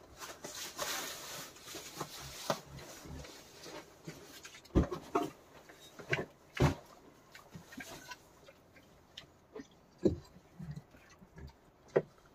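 A wild boar moving about and snuffling, with scattered irregular knocks and rustling. Four sharper knocks stand out, one near the middle, another soon after, and two towards the end.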